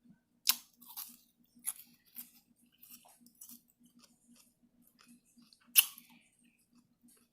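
Close-up mouth sounds of eating shrimp stir-fry in coconut curry: chewing and wet lip smacks, with sharp smacks about half a second in, around one and two seconds, and the loudest one near six seconds.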